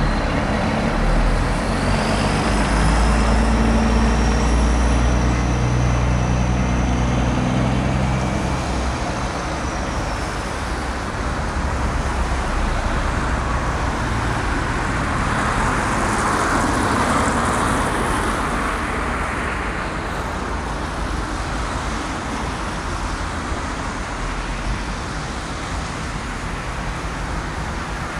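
Semi-truck's diesel engine running as it drives slowly away, its low rumble strongest over the first several seconds and then fading. After that comes a broad wash of traffic and tyre noise that swells about midway and slowly dies down.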